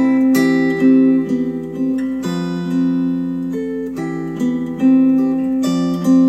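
Instrumental music led by acoustic guitar, with chords changing every second or so, played back through KEF LS50 Meta bookshelf speakers.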